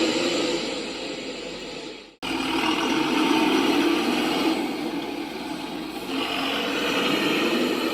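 Truck engine running steadily. About two seconds in, the sound cuts out abruptly for a split second and picks up again.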